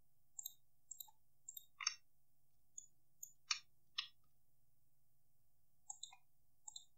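Faint computer mouse clicks and key presses, about a dozen short scattered clicks, some in quick pairs, with three louder ones around two, three and a half and four seconds in.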